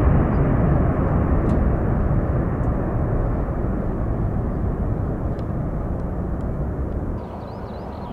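Boeing 747 four-engine jet noise, a deep rumbling roar fading steadily as the aircraft climbs away after takeoff. The noise drops suddenly about seven seconds in, leaving faint bird chirps.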